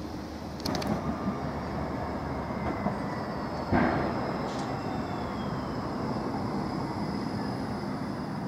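Škoda low-floor tram rolling on its rails, with a steady running noise. There is one sharp, loud knock a little under four seconds in, and a thin high whine after it.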